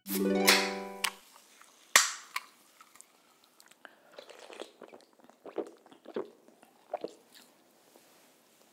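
A short chime at the very start, then the sharp crack and brief fizz of an aluminium soda can being opened about two seconds in, followed by a series of soft gulps as the drink is swallowed.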